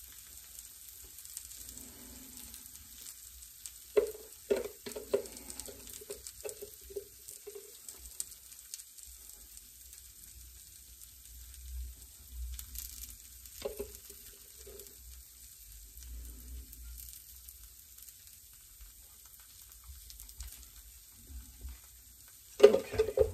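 Cheese and green tomato chaffle batter sizzling faintly in two mini waffle makers, with a metal spoon clinking and scraping as pork panko crumbs are spooned on top. There is a cluster of spoon taps about four to seven seconds in, a few more around fourteen seconds, and a louder clatter near the end.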